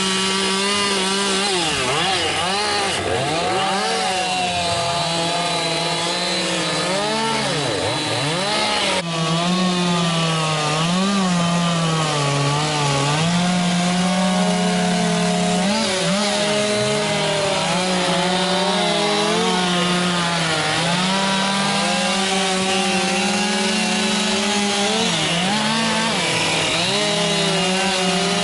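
Chainsaws carving wood, engines running continuously with the pitch rising and falling as the throttle and cutting load change; more than one saw is running at once.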